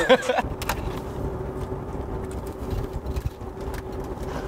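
Low engine and road rumble inside a limousine's cabin, with a faint steady hum and a few light clicks in the first second.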